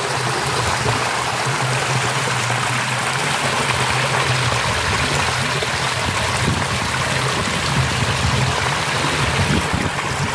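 Water pouring in sheets over low stone weir ledges into a foaming pool: a steady, loud rushing.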